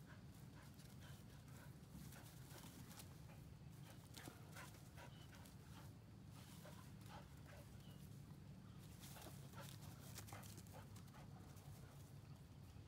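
Faint scuffling and rustling of a dog's paws and a pig's hooves moving over dry straw, many small scattered clicks over a steady low background hum.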